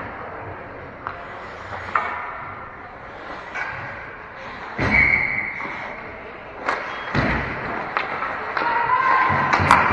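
Ice hockey game play: sharp knocks and thuds of the puck and sticks against the boards, two of them heavy, over the steady din of the rink, with shouting toward the end.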